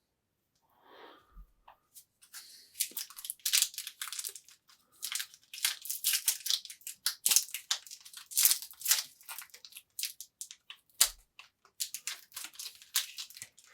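Plastic trading-card pack wrapper crinkling and crackling as it is squeezed and pulled at, a pack that won't tear open. The crackling starts about two seconds in and runs in quick, uneven bursts until near the end.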